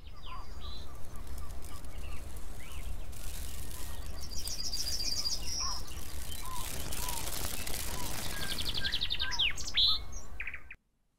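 Several songbirds chirping and singing, with two fast high trills among scattered short whistles and calls, over a steady low rumble. It cuts off suddenly near the end.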